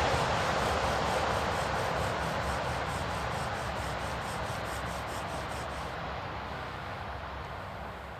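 Wooden bow drill spindle grinding into the hearth board, a continuous rasping with a fast, regular back-and-forth pulse that stops about six seconds in, the whole sound fading out gradually.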